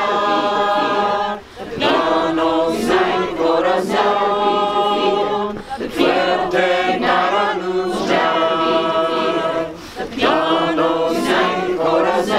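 A crowd of protesters singing together without instruments, in phrases of held notes that break and start again every four seconds or so.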